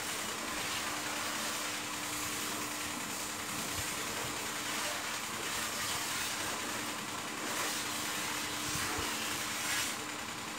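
Belt-driven rotisserie spit turning a whole pig over a charcoal fire: a steady low hum under an even hiss.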